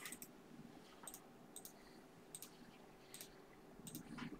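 Faint, irregular clicks, about two a second and often in close pairs, over near-silent room tone.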